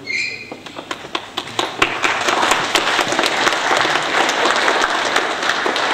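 Audience applauding: scattered claps at first, building into full, steady clapping about two seconds in.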